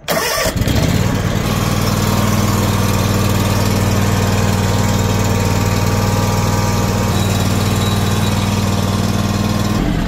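John Deere lawn tractor's iTorque V-twin engine cranking for a moment and catching at once on a freshly replaced battery. It then runs steadily and evenly.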